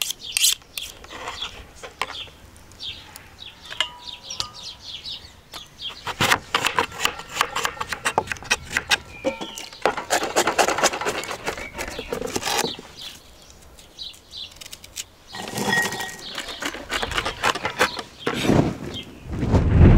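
Cleaver chopping garlic on a wooden cutting board: rapid runs of knocks in the middle and again near the end, with birds chirping.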